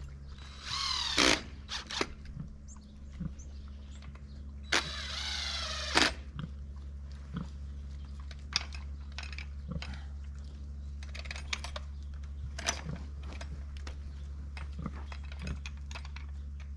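A small engine running steadily with a low hum, with two loud, high, wavering squeals about a second and about five seconds in, and scattered knocks and clicks throughout.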